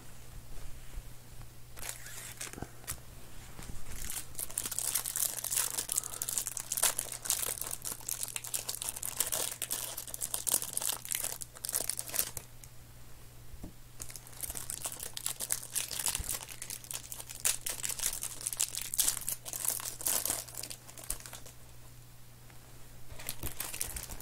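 Clear cellophane wrapper being torn open and crumpled by hand: dense crackling crinkles in two spells of several seconds each, with a short lull about halfway through.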